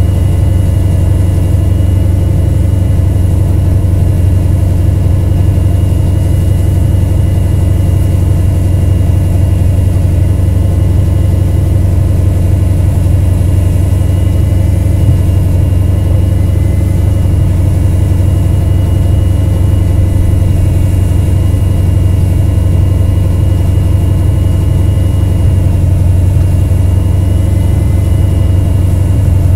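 A vehicle engine idling steadily close by, a constant low hum that does not change.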